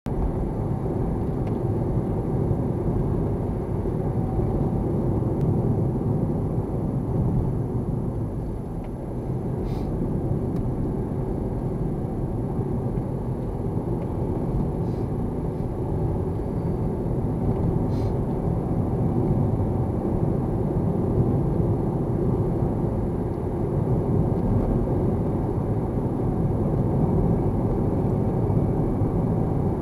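Steady road and engine noise of a car driving, heard inside the cabin, dipping briefly about nine seconds in, with a few faint clicks.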